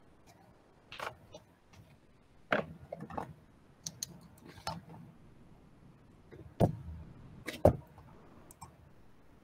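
Scattered clicks and knocks from someone working at a computer desk, picked up by an open laptop microphone. There are about half a dozen light clicks, with two heavier thumps about a second apart a little past two-thirds of the way in.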